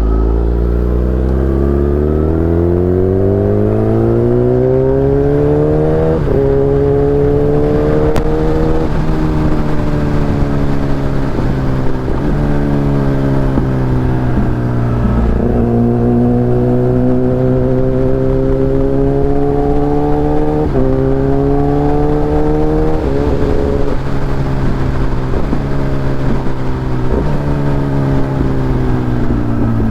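Kawasaki Ninja ZX-10R's inline-four engine under way, heard onboard: the revs climb steadily for about six seconds, then rise and fall through several gear changes, with stepped changes in pitch in the second half.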